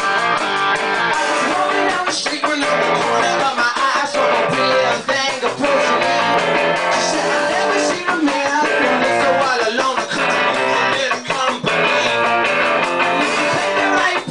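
Rock band playing live, with electric guitar, bass and a male singer singing into a microphone.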